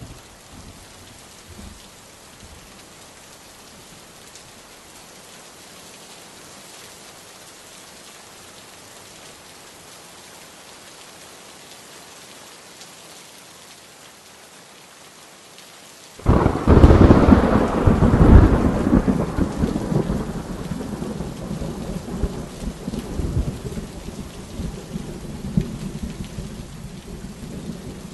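Steady rain hiss. About sixteen seconds in, a sudden loud thunderclap rumbles and slowly dies away.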